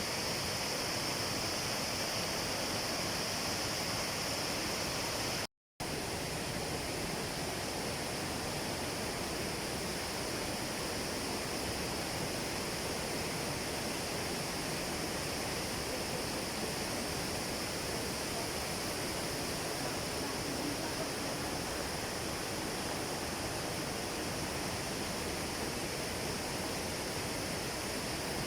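Steady rushing roar of a waterfall, an even wash of falling water, broken by a split-second total dropout about five and a half seconds in.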